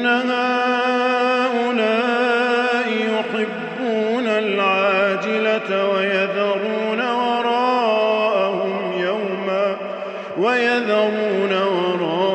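A man's voice chanting Quran recitation in melodic tajwid, holding long drawn-out notes with wavering ornaments. There is a short breath break about ten seconds in.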